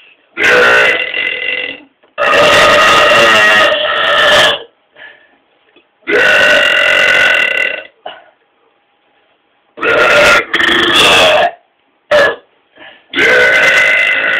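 Men belching: a series of about six loud, drawn-out burps with short pauses between them, the longest over two seconds and one very short near the end.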